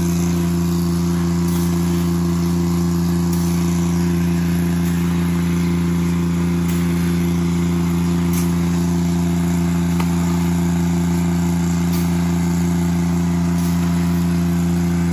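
An engine running at a constant speed, giving a steady, unbroken low drone.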